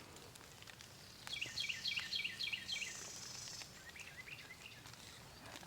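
A songbird singing a quick run of about eight repeated chirping notes for under two seconds, with a few fainter notes a little later, over quiet rural background noise.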